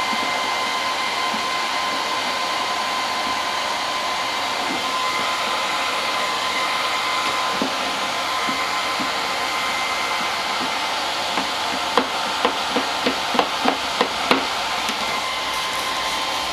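Hot-air blower, such as a heat gun used to warm vinyl graphics, running steadily with a steady whine. Near the end come about seven sharp taps in quick succession.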